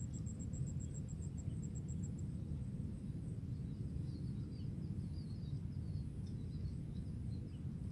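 Outdoor pond-side ambience: a steady low rumble, with a high, rapidly pulsing insect trill that stops about two seconds in. Faint small-bird chirps follow through the middle.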